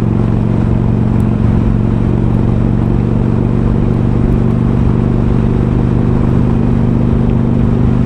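Harley-Davidson Iron's air-cooled V-twin, upgraded to 1200 with Screamin' Eagle slip-on mufflers, running at a steady speed with an even, unchanging engine note.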